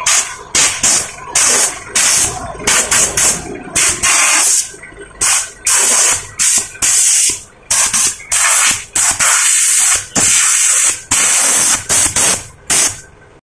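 Water from a hose spraying onto a car's windshield and hood, a hiss that starts and stops in many short, irregular bursts.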